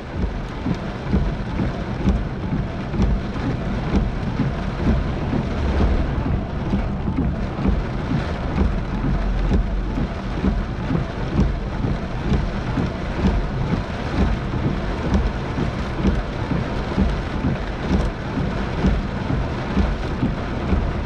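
Heavy rain pelting a moving car's windshield and roof, heard from inside the cabin, with low rolls of thunder in a severe thunderstorm.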